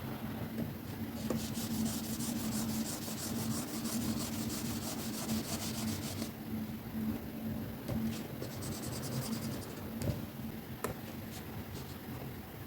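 Stylus scratching on a drawing tablet's screen in quick back-and-forth colouring strokes: a steady run from about a second in to about six seconds, and a shorter run about three-quarters through. A steady low hum lies underneath.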